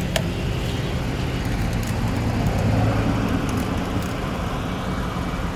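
Steady road traffic noise, swelling slightly as a vehicle passes closer about two to three seconds in, with one brief click near the start.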